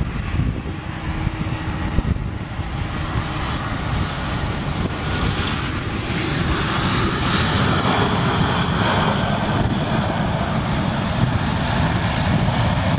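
Jet engines of a Boeing 737 airliner, a steady rushing roar during the landing. About six seconds in, after touchdown with the spoilers up, the roar grows louder and brighter, typical of reverse thrust on the rollout.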